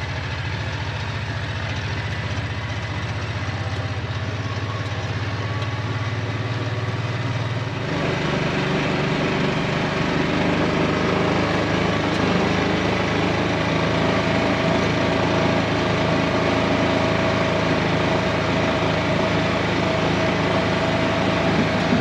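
A small farm vehicle's engine running steadily, then picking up speed about eight seconds in, its note rising and getting louder and holding there as the vehicle goes faster.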